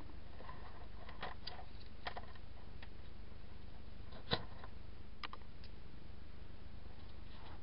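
Handling noise: scattered light clicks and taps as a wired-up transistor breadboard and its test leads are handled, with one sharper click about four seconds in, over a steady low hum.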